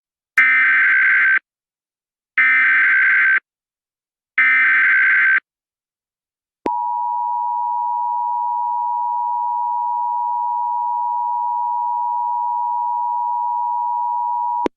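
Emergency Alert System SAME header: three one-second bursts of digital data tones about a second apart, then the two-tone EAS attention signal held steady for about eight seconds before cutting off. The sequence opens an EAS message, here an Emergency Action Termination.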